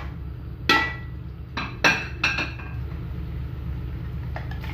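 A dish knocking against a steel cooking pot as chicken pieces are tipped in. There are about five sharp clinks in the first two and a half seconds, the pot ringing briefly after each, over a steady low hum.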